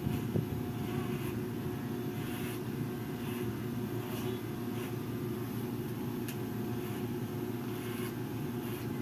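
Corded electric hair clippers buzzing steadily as they cut hair.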